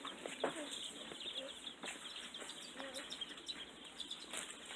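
A brood of baby chicks peeping: many quick, high chirps overlapping, growing thicker toward the end.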